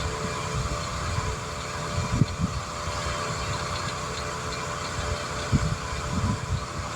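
A motor running at a steady idle hum, with a few low thumps about two seconds in and again near the end.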